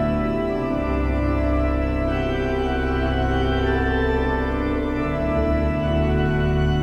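Background music of long held chords, with the chord changing about a second in and again about five seconds in.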